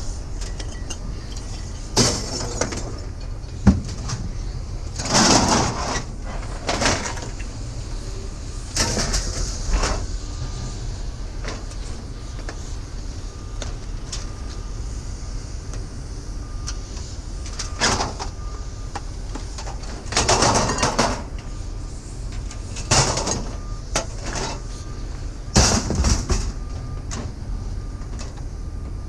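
Sheet-metal fluorescent light fixture being taken apart with hand tools: intermittent scraping and rattling of metal and wire, with one sharp click a few seconds in, over a steady low rumble.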